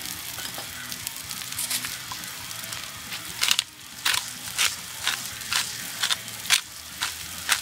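Sliced onions frying in a cast iron pan with a steady sizzle. About halfway through, a pepper mill starts grinding over the pan in short crunching twists, about two a second, louder than the sizzle.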